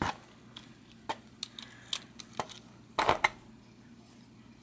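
Light metal clicks about every half second as a socket wrench backs the lock nut off a vintage bicycle pedal spindle, then a louder metallic clatter about three seconds in.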